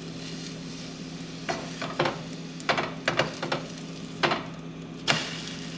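Egg-soaked slices of French toast sizzling in a buttered frying pan while a spatula scrapes and knocks against the pan to flip them. The scrapes come in a string of sharp strokes from about a second and a half in.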